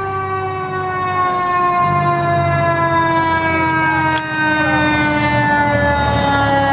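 Fire engine siren winding down: one long tone falling slowly and steadily in pitch, over the low rumble of the fire engine's engine. A brief sharp click about four seconds in.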